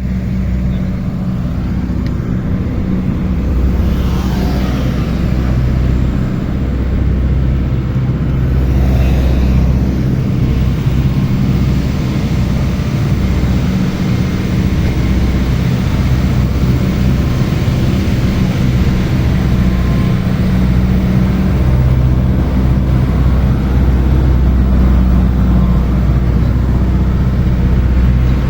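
Ferry boat's engine running, a steady low drone that holds throughout.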